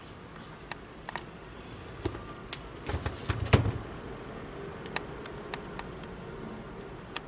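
Handling noise of sneakers being moved about: scattered light clicks and taps, with a louder clatter a little past three seconds in.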